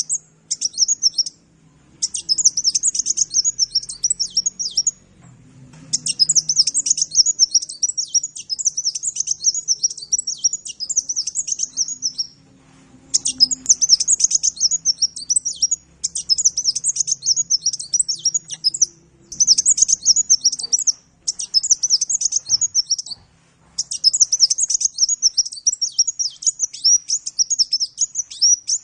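Sunbird (Indonesian 'kolibri') singing: fast, high-pitched twittering phrases a few seconds long, separated by short pauses.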